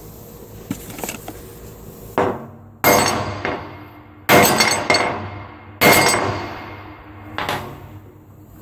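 Ball peen hammer striking a metal test plate coated with tank lining in an impact test. Four hard blows about a second and a half apart, each ringing out, with a lighter knock near the end.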